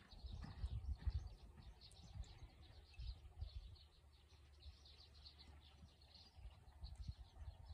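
Faint birdsong, a string of short high chirps, over irregular low thuds that are strongest at the start and again near the end.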